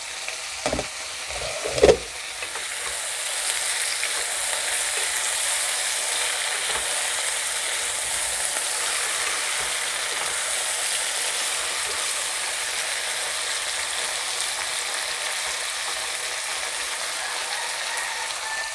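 Mixed vegetables sizzling steadily as they fry in mustard oil in a nonstick kadai, stirred now and then with a wooden spatula. A few sharp knocks come in the first two seconds.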